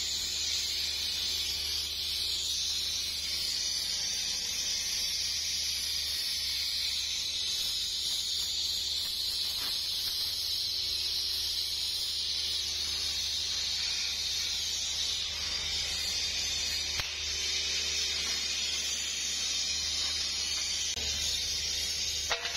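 Gas torch flame hissing steadily as it is played over the joints of steel pipe pieces.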